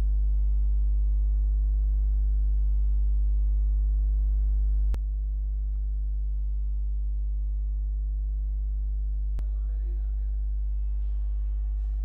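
Steady electrical hum with a stack of evenly spaced overtones, strongest at the bottom, picked up in the recording. A sharp click comes about five seconds in, after which the hum is a little quieter, and another click comes about four seconds later.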